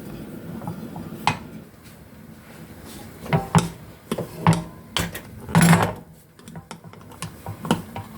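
Metal cookware being handled: a string of separate sharp clanks and knocks, the loudest a longer rattle a little past the middle.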